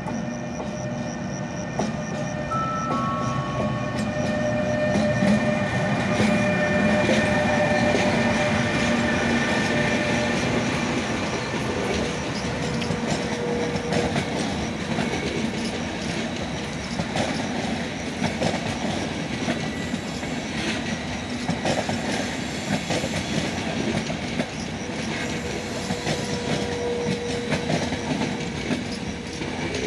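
Electric-hauled passenger train of Intercity coaches running past on the near track: a steady rumble of wheels on rail, with the clickety-clack of wheels over the rail joints. It is loudest about five to ten seconds in.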